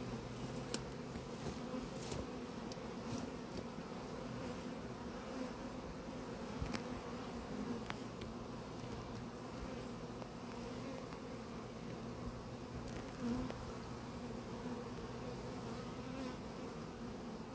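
Steady low buzzing hum of a honeybee swarm clustered on a tree and gathering at a nucleus hive box, with a few faint clicks. The bees at the box are calling the rest of the swarm in with their scent.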